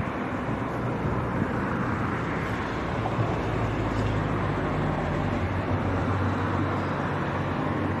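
A steady rushing noise, even throughout, with no distinct calls or knocks.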